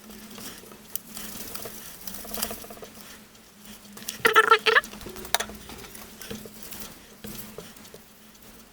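Toilet paper wet with alcohol rubbing on the metal contact plate of a graphics card cooler as the old thermal paste is wiped off. It makes soft scratchy rubbing, with one short, louder squeak about four seconds in.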